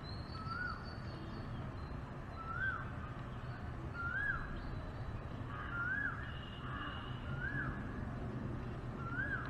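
A bird calling outdoors: one short whistled note that rises and falls, repeated evenly about every one and a half to two seconds, six times, over a steady low background hum.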